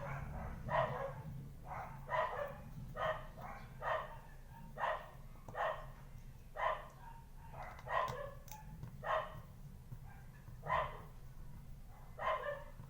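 A dog barking over and over, about once a second, with a short pause a little before the end, over a steady low hum.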